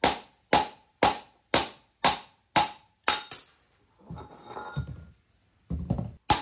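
Hammer blows on a steel punch, about two a second, each with a metallic ring, knocking an old bearing race out of a motorcycle wheel hub. The blows stop about three seconds in, give way to some handling noise, and start again near the end.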